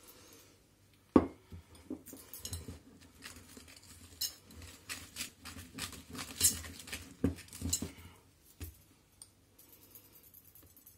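Wire whisk stirring thick cake batter in a glass bowl, flour being worked in a little at a time. Its wires clink and scrape against the glass in quick, irregular strokes, after a sharp knock about a second in.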